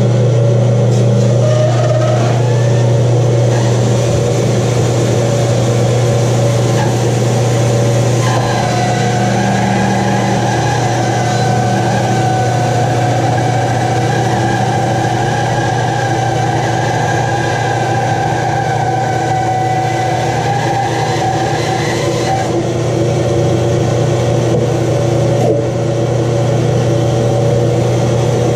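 Rikon bandsaw running steadily while its blade cuts through a thick block of wood. A higher steady whine rides over the motor hum from about eight seconds in until about twenty-two seconds in.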